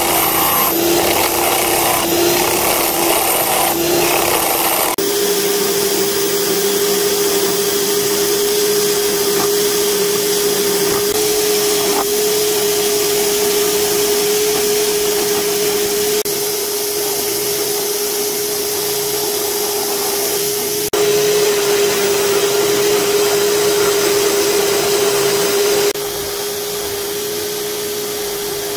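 Small homemade wood lathe running with a steady motor whine while a chisel ground from a drill bit cuts the spinning wooden blank, a scraping hiss under the whine.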